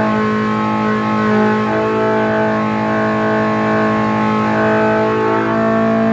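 Polaris RZR Pro R 2.0-litre four-cylinder engine running steadily at about 6,500 rpm under dyno load, through an RPM header and a 3-inch straight-through muffler. It is held there waiting for the dyno pull to trigger.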